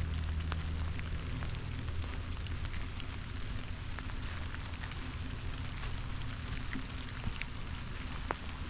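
Light rain falling on autumn forest leaves: a steady patter with many single drops ticking sharply, over a steady low rumble.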